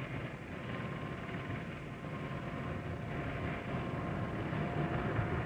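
Bristol Belvedere tandem-rotor helicopter hovering with an underslung load: steady rotor and turbine noise, with a low rumble and a faint steady whine.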